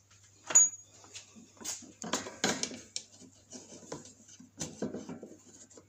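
Hand-tool handling clicks and light knocks: a screwdriver and a plastic pinch-off pliers worked against the small hose clamp on a lawnmower engine's fuel line. A sharp click about half a second in, then scattered clicks and rattles.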